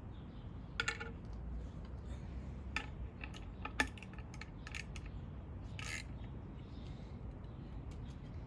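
A few scattered small metallic clicks and clinks as a car horn part is handled and fitted back on, over a low steady background hum.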